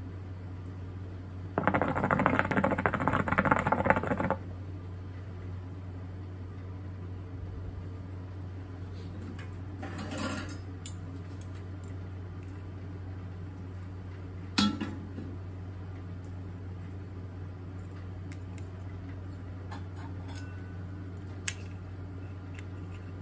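Hookah water bubbling hard for about three seconds as a draw is pulled through the hose. After it come a few sharp metal clicks from tongs handling the coals and the lid, over a steady low hum.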